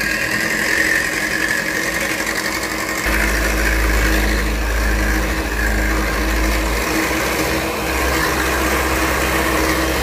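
Electric hand mixer running steadily, its beaters whipping cold whipping cream in a glass bowl. The motor grows a little louder about three seconds in.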